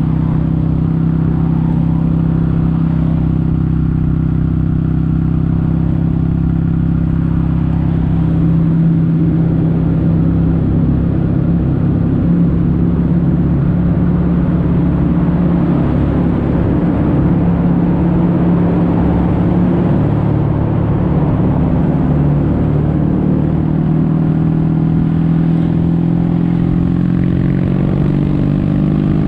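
Kawasaki W800's air-cooled parallel-twin engine running through Yamato stainless steel Caburton-style silencers while the bike is ridden, holding a steady exhaust note with only slight changes in engine speed, over wind and road noise.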